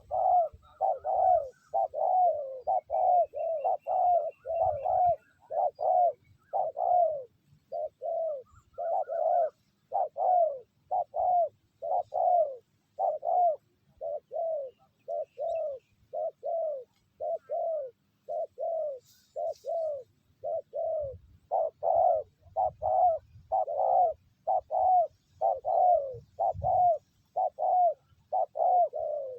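Spotted doves cooing in a fast, unbroken series of short notes, about one and a half to two a second.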